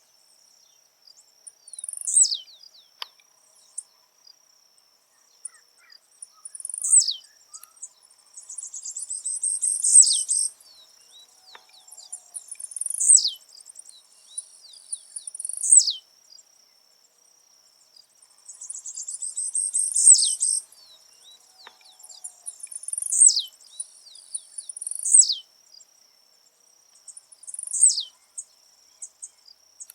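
Blue-black grassquit (tiziu) singing: short, sharply falling buzzy "tiziu" notes repeated every few seconds, with two longer buzzy, rattling phrases about a third and two thirds of the way through. A steady high insect trill runs underneath.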